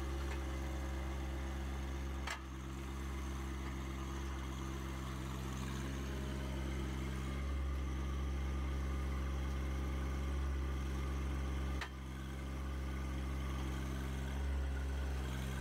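John Deere 1025R compact tractor's three-cylinder diesel running steadily under load as the tractor, stuck in soft ground, pushes with its loader's brush crusher to get free. Two short clicks break the sound, about two seconds in and again near twelve seconds.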